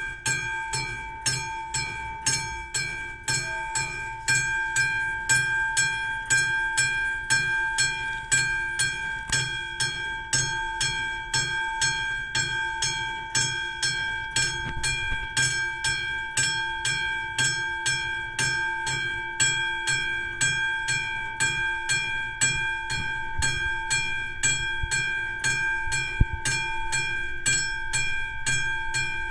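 Classic electric level-crossing bell struck rapidly and continuously, ringing steadily as the warning that a train is approaching.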